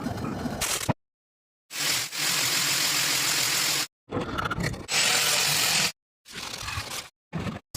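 Power tool working the steel of a rusty axe head in a series of short clips: a steady grinding hiss, three main stretches of about two seconds each, each cut off abruptly.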